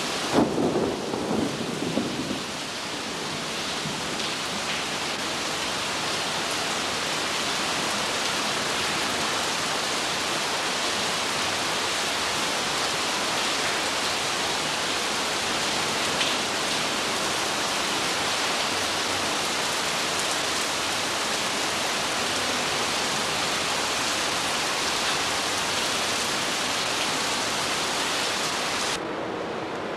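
Heavy rain hissing steadily in a thunderstorm, opening with a couple of seconds of rumbling thunder. About a second before the end the rain cuts off and gives way to a steady low hum.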